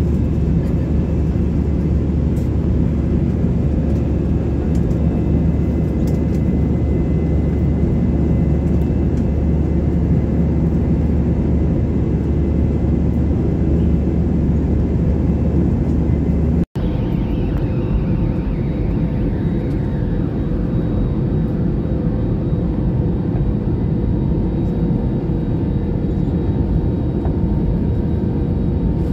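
Steady roar of jet airliner cabin noise heard from a window seat over the wing: engine and airflow noise. A short break about two-thirds of the way through is followed by a whine that falls in pitch over a few seconds, and then the steady cabin noise carries on.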